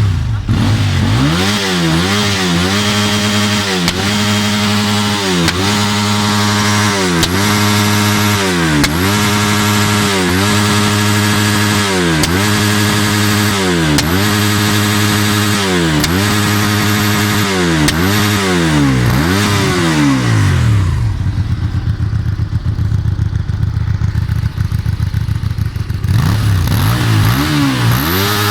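Vehicle engine revved over and over in even blips, each rising and falling in pitch, about one every one and a half to two seconds. It then settles to a steady idle for several seconds and starts revving again near the end.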